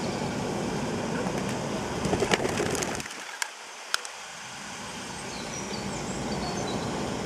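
Feral pigeons taking off, with a brief clatter of wingbeats about two seconds in, over a steady outdoor background with faint small-bird calls. Two sharp clicks follow a little later.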